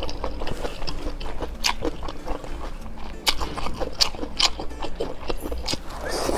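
A person eating close to the microphone: wet chewing and slurping mouth sounds, with many short, sharp smacks and clicks.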